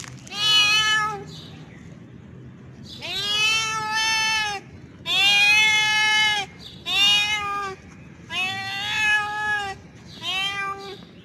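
Male tabby cat meowing loudly over and over, about six drawn-out calls that rise and then fall in pitch, the longest over a second long: a tomcat's mating call to a female.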